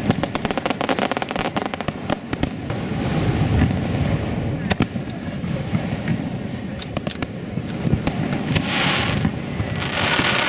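Aerial firework shells bursting in quick succession: sharp bangs and crackling, densest in the first couple of seconds, with a low rumbling echo between them. There are two hissing bursts near the end.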